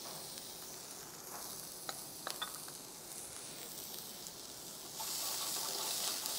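Chopped onion, garlic, ginger and green chillies sizzling in hot oil in a pan, with a few light clicks about two seconds in. From about five seconds in it gets louder as a spatula stirs them through the oil.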